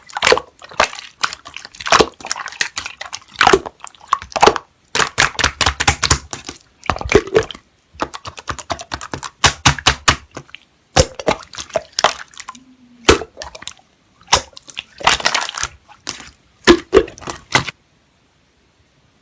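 Slime being squished and pressed by hand, giving rapid runs of sticky pops and crackles in bursts. The sound stops abruptly a couple of seconds before the end.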